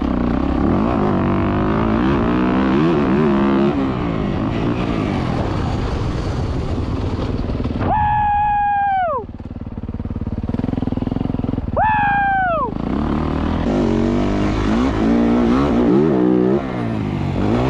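Dirt bike engine running and revving up and down throughout. Twice, about eight and twelve seconds in, it spikes to a high-pitched rev that falls away steeply.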